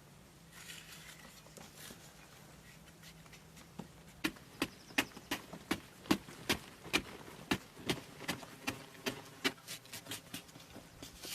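Repeated sharp knocks, about two to three a second, begin about four seconds in, like a hand tool striking over and over.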